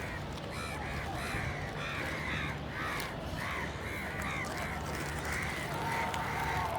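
Several crows cawing in a rapid, overlapping series of short calls, a few each second, over a steady low hum.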